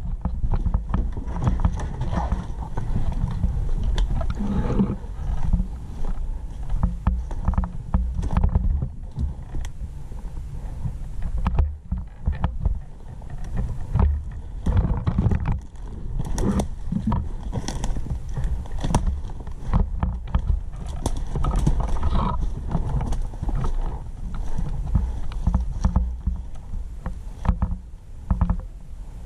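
Irregular knocking, thumping and rustling handling noise from a player moving with an airsoft rifle that carries the scope camera, with steps and bumps on the gun.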